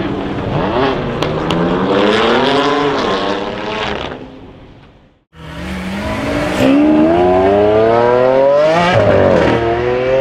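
BMW M3's twin-turbo straight-six revving hard under acceleration in repeated rising sweeps, fading out about four seconds in. After a brief silence, a second loud engine revs up in long rising sweeps.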